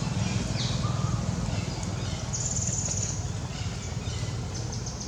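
Short high chirps, a buzzy trill about halfway through and a quick run of notes near the end, typical of small birds calling, over a steady low rumble.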